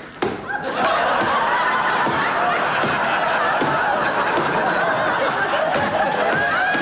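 Studio audience laughter, breaking out sharply about a quarter of a second in and then going on loud and steady as many voices laugh together.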